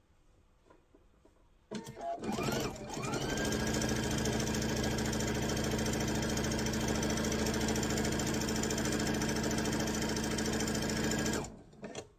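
Electric sewing machine stitching a seam through fabric. A couple of seconds in it speeds up with a rising whine, runs at a steady speed, then stops suddenly near the end, followed by a short click.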